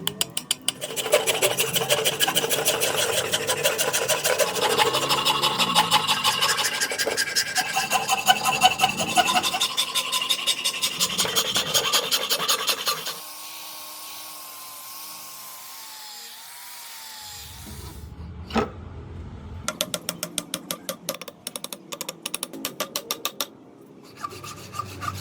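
A hand rasp scraping over a wooden axe handle in rapid strokes. Just after the middle it goes quiet for a few seconds, then comes a single sharp click, and the rasping starts again.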